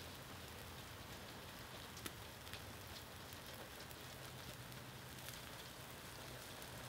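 Faint, steady sizzle of a thick bone-in ribeye cooking on a charcoal grill grate, with scattered small crackles.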